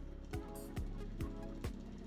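Background music with a steady electronic beat: a deep, falling-pitch kick drum a little over twice a second under held tones.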